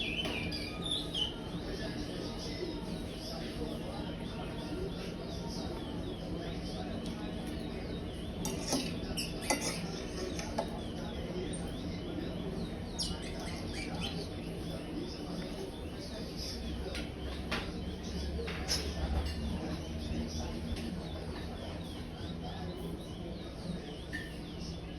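A young curió (chestnut-bellied seed finch) giving a short falling chirp at the start, then faint scattered chirps, with occasional sharp clicks over a steady low hum.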